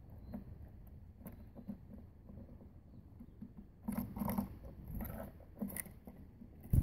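Blue tit and great tit hopping and pecking among peanuts on a wooden bird table: light taps and scratches, busier a little past the middle, with one sharp, deep thump near the end.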